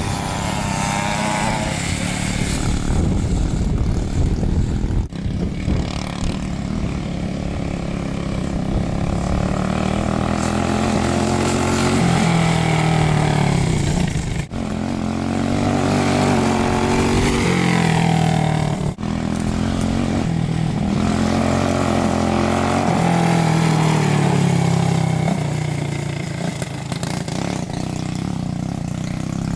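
Briggs & Stratton Animal single-cylinder four-stroke go-kart engine running hard, its revs rising and falling again and again. There are a few sudden, very brief breaks in the sound.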